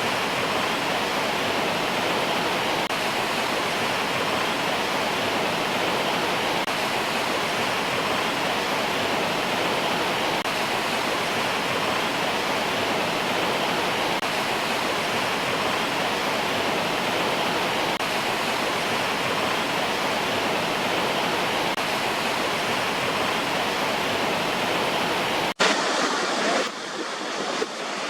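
Waterfall rushing steadily. About 25 seconds in it cuts off abruptly and gives way to a thinner, uneven rush of water.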